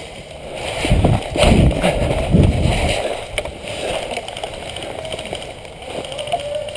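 Clothing and gear rustling and bumping against the microphone as the player moves off, with low, uneven rumbling that is loudest in the first few seconds and then settles to a steadier, quieter rustle.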